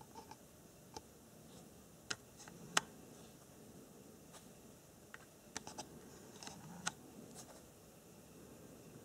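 Faint, irregular light clicks and scratches from handling a zoomed-in handheld camera, about a dozen in all, the sharpest a little under three seconds in, over a low steady hiss.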